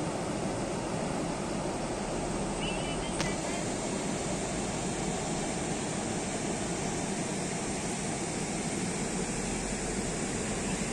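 Steady rush of water pouring through the arched sluice gates of a weir into the river, a constant even roar with one small click about three seconds in.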